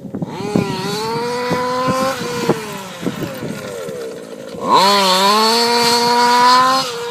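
Rooster Tail 28.5 engine running at high revs in two long pulls. The second, starting just under five seconds in, is louder, and the pitch climbs through each pull and drops at the end.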